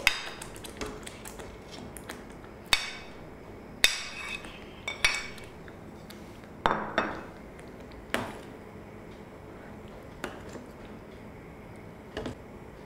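A metal spoon and ladle clinking against a plate and the rim of a cooking pan: about ten sharp, separate clinks spread unevenly, as paneer cubes are pushed off the plate into thick spinach gravy and stirred in.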